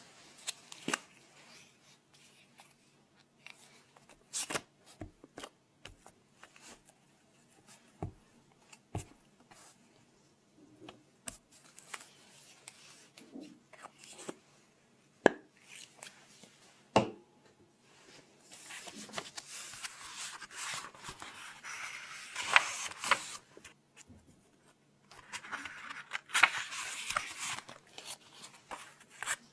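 Close-miked paper and desk handling for ASMR: scattered taps and clicks, then two longer stretches of scratchy noise, the first about five seconds long and the second about two and a half.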